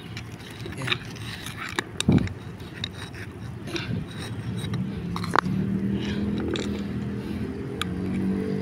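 Concrete paving brick being pried loose with a screwdriver and lifted out of its sand bed: scraping, gritty rubbing and sharp clicks of brick and metal. From about halfway a steady engine hum comes in underneath.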